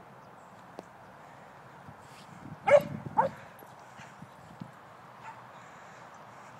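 A dog barks twice, about half a second apart, nearly three seconds in; the first bark is the louder.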